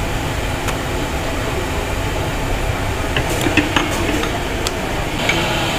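Steady low rumbling background noise, with a few light clicks and taps between about three and five seconds in from a wooden rolling pin rolling out kachori dough on a laminated table.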